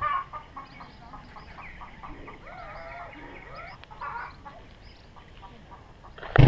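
Chickens clucking, with a quick run of short clucks at the start and more wavering calls through the middle.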